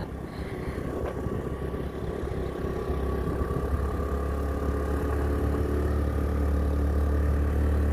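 Motorbike engine running steadily while riding, with road noise; its low drone grows gradually louder from about halfway through.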